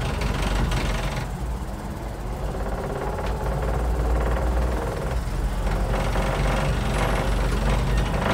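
1929 Ford Model A mail truck's four-cylinder flathead engine running at low speed in the cab, with a steady low rumble and the truck's inside sliding door rattling along with it.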